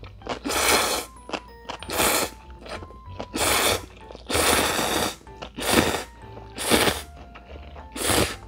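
A person slurping ramen noodles off chopsticks, seven slurps about a second apart with a longer one near the middle, over light background music.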